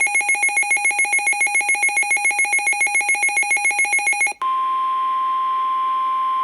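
Weather radio sounding an alert. First comes a rapid, evenly pulsing, warbling electronic beep. About four seconds in it switches to a steady single-pitched tone near 1 kHz, the NOAA Weather Radio warning alarm tone that signals a warning, here a flash flood warning, is about to be read.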